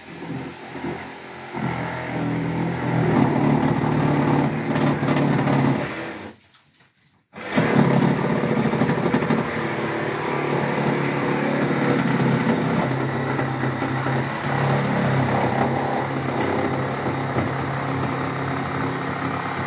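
An electric power tool running steadily in long stretches, cutting into the wooden floorboards to open up the floor. It stops for about a second some six seconds in, then starts again.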